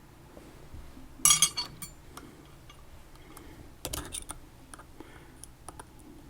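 Light metal clinking of a padlock and lock-picking tools being handled: a quick cluster of clinks about a second in, and another near four seconds in.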